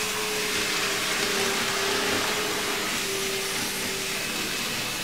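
N scale model locomotives running around a test loop: a steady whirring hiss from their small motors and wheels on the rails, with a hum that swells and fades a few times as they circle.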